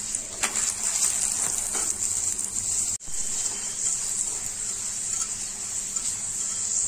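Cauliflower-stuffed paratha sizzling steadily as it fries in hot fat in a pan, with a few light scrapes from the metal spatula turning it.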